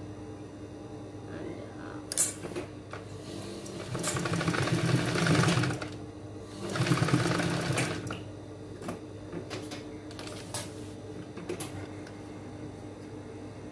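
Industrial sewing machine stitching in two short runs, the first about two seconds long and the second a little shorter, with a sharp click beforehand and a few light clicks afterwards as the work is handled.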